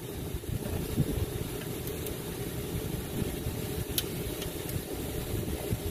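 Steady low rumble, with a few faint clicks of hand tools on metal as the alternator's mounting bolts are worked on.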